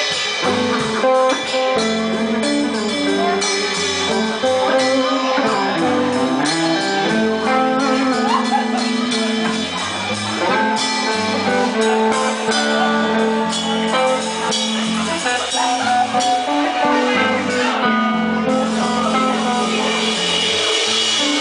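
Live rock band playing, with electric guitar over a drum kit, recorded from the audience.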